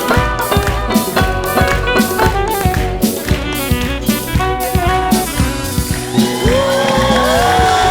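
Sarod playing a popular wedding-band tune over drum accompaniment. About five seconds in the drumming stops and the sarod carries on alone with sliding, bending notes.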